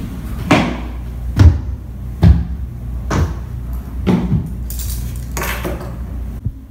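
Slow, heavy footsteps: five evenly spaced steps a little under a second apart, over a low steady hum, followed by a brief rustle.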